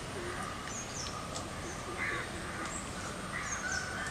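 Birds calling: a few short calls, with fainter high chirps from smaller birds, over a steady background hiss.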